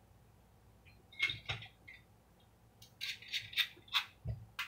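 Sharp plastic clicks and clatter of Beyblade Burst tops and launchers being handled and readied: a few clicks about a second in, then a quicker run of clicks near the end.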